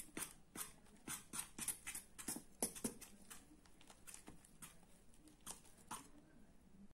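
A utensil clicking and tapping against a plate as it stirs flour into a mashed-banana and egg batter: faint, irregular clicks about two or three a second, thinning out after about three seconds.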